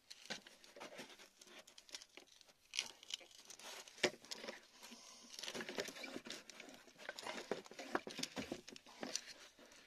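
A metal blade scraping and picking at wet, crumbly rock around a crystal: irregular scratching and crunching with many small clicks, the sharpest click about four seconds in.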